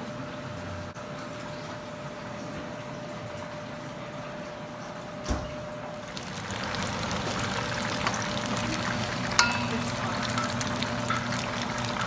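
Chicken wings deep-frying in a pan of oil: a dense crackling sizzle comes in about halfway through, after a steadier quieter hiss and a single thump. A sharp metallic clink near the end.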